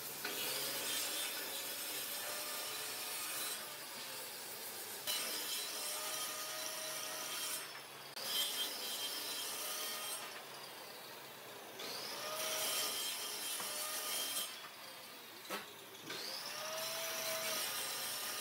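Handheld butane torch flame hissing as it scorches a wooden panel, in bursts of two to three seconds with short breaks between, each carrying a faint whistle that rises and falls.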